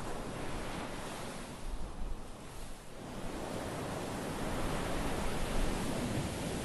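Small waves washing up a sandy beach: a steady hiss of foamy surf that dips briefly about two seconds in, then swells as the next wave runs up over the sand.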